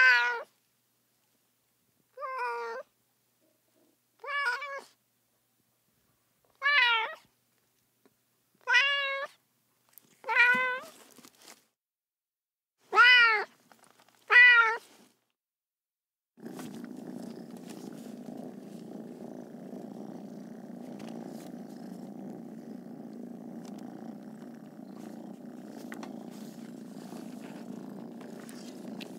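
A cat meowing about eight times, short separate meows a second or two apart. A little past halfway the meows give way to steady purring.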